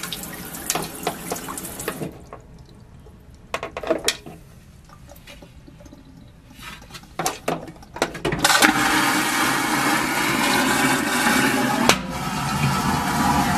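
Cruise-ship vacuum toilet: a few clicks and knocks as the lid is handled, then about eight seconds in a sudden loud rushing whoosh of the vacuum flush that carries on, broken by a sharp click near the end.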